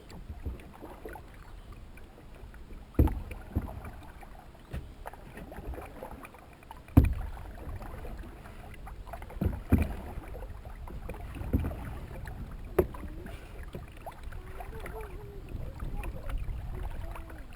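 A canoe being paddled: a steady low rumble of water and movement, broken by several irregular sharp knocks, the loudest about seven seconds in.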